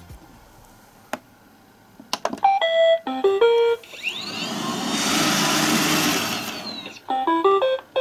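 iRobot Roomba robot vacuum starting up: after a couple of clicks it plays a short melody of electronic beeps, its motors whir up with a rising whine for about three seconds and then wind down, and near the end it plays another quick beep melody.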